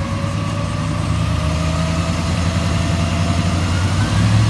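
2001 Chevrolet Silverado 2500HD's 8.1-litre V8 running steadily, with a faint whine rising slowly in pitch. No squeak: the noise was traced to exhaust pinholes and a leaking exhaust manifold gasket, now sealed.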